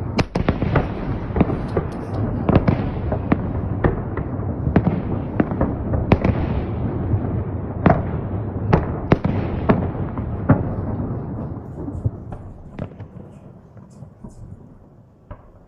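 Fireworks salute: many sharp bangs over a continuous low rumble, thinning out and dying away about eleven or twelve seconds in, leaving a few scattered pops.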